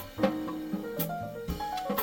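Background music with a steady drum beat, a drum hit about every half second under piano and guitar notes in a jazzy style.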